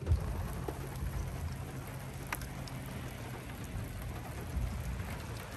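Steady rain falling around and on a car, heard from inside it, with a low rumble underneath and a single sharp drop tick about two seconds in.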